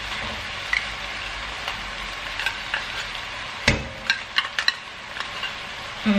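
Ground beef and pork sizzling steadily in a pot, with a metal spoon clicking and scraping as it digs tomato puree out of a small tin can: one loud knock a little past halfway, then several quick clicks.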